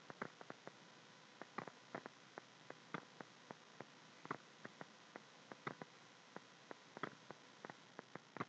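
Near silence: a faint steady hiss with small sharp clicks throughout, about four a second at uneven intervals.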